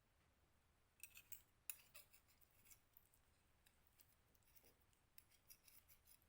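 Faint clicks and scrapes of a fork against a glass dish of spaghetti, starting about a second in and going on in short irregular runs.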